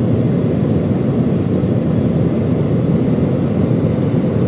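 Steady low rumble of an airliner's engines and rushing airflow, heard inside the passenger cabin in flight.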